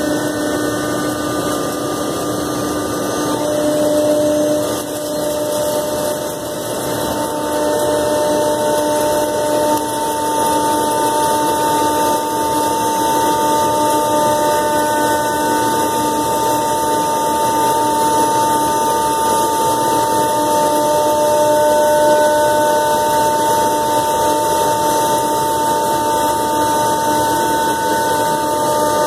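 Komo VR510 Mach 1 CNC router's spindle running and its bit milling a sheet: a steady whine over the noise of cutting, with a few tones dropping in and out as the cut goes on.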